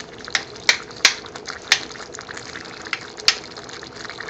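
Thick base onion gravy simmering in a pan: bubbles pop with a few sharp clicks at uneven intervals over a steady hiss.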